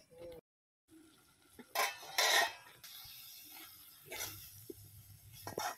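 Metal ladle scraping and stirring prawn masala curry in an aluminium kadai: a few short, sharp scrapes and clatters, the loudest about two seconds in.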